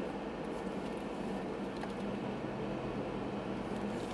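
Steady hum and road noise of a car driving, heard from inside the cabin.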